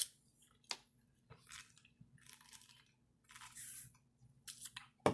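Drinking sparkling water from a can through a plastic straw: a few short sips and swallows with small wet mouth clicks, the longest sip about three and a half seconds in.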